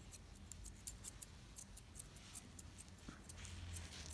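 Grooming scissors snipping the hair over a Maltese's eyes: quick, faint, crisp snips, a few a second at an uneven pace.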